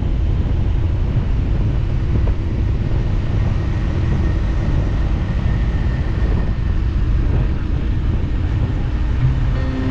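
Small 125 cc motorcycle on the move: steady engine and road rumble, heavy with wind buffeting the microphone. Music comes in near the end.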